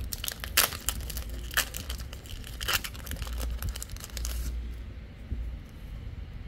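A Digimon Card Game booster pack wrapper being torn open and crinkled by hand, with several sharp tears and rustles that stop about four and a half seconds in.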